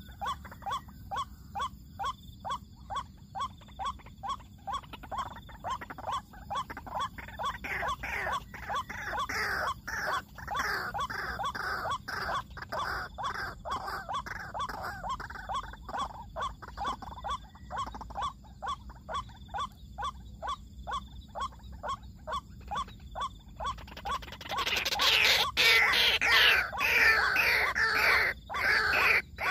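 White-breasted waterhen (ruak-ruak) calling with repeated 'kruak' notes, about two a second at first. The notes then thicken into a denser, overlapping run of calls, which turns much louder near the end.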